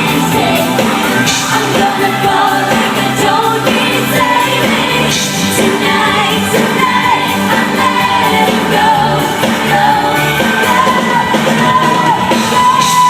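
A female pop singer singing live with her band, amplified in a large hall, with fans shouting now and then. Near the end she holds a long note.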